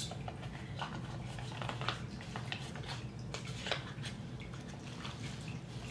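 Faint, irregular rustling and light clicks of a small wrapped item being handled and unwrapped by hand.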